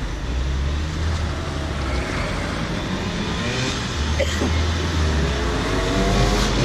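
Cars driving past on the road, then Simson two-stroke mopeds approaching near the end, their engines rising in pitch as they pull up.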